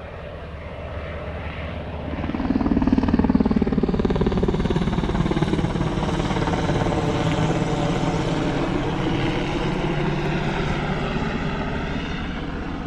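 A low-flying aircraft passing close with a steady engine drone. The drone grows louder about two seconds in, then its pitch slowly falls in the later part as it moves past.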